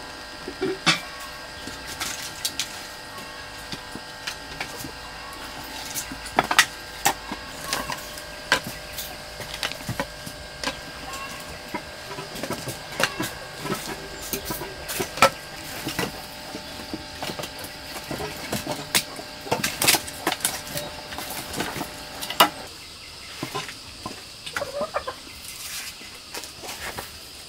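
Dry firewood sticks knocking and clattering, handled one by one at an open ash hearth, in irregular sharp clacks. Chickens cluck in the background.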